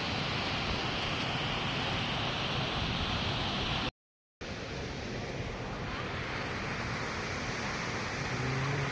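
Steady rushing of Jog Falls across the gorge, mixed with wind on the microphone. About four seconds in, it cuts out to complete silence for about half a second, then carries on.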